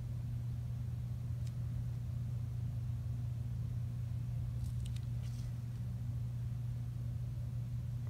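A steady low hum throughout, with a few faint scratches of a fine-tip pen drawing on paper about halfway through.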